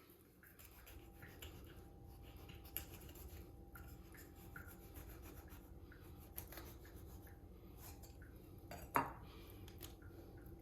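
Faint, scattered clicking and short scraping of kitchen utensils handled while fish is prepared, with one louder sharp clack about nine seconds in.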